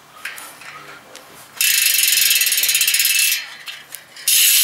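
A new BMX rear wheel's hub freewheeling as it is spun by hand, its pawls clicking so fast they make a loud ratcheting buzz. The buzz runs for under two seconds starting about a second and a half in, stops, and starts again near the end.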